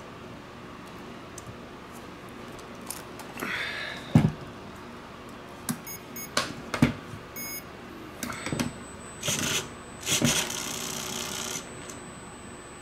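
Clicks, taps and light knocks of hands working on an RC crawler chassis, with two short electronic beeps near the middle and a faint steady high whine from about two-thirds of the way in.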